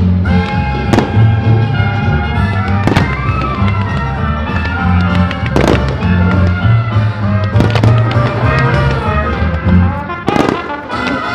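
Aerial firework shells bursting with sharp bangs every second or two, over loud instrumental music with sustained notes and a deep bass line, the soundtrack of a pyromusical display.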